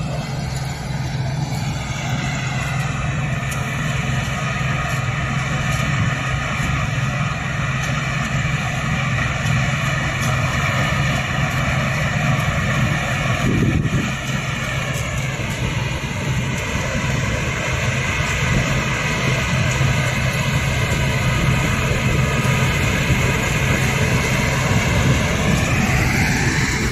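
Combine harvester running while cutting sunflowers: a steady engine drone under a whine from the threshing machinery. The whine dips in pitch for a while around the middle and climbs again near the end, with one short knock about halfway through.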